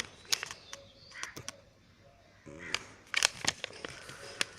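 Paper bills and parcel packaging being handled: a run of sharp crackles and clicks, with a short pitched call about two and a half seconds in.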